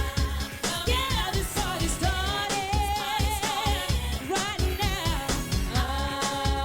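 Pop band music with a steady bass-drum beat and long held sung or instrumental notes, some with vibrato.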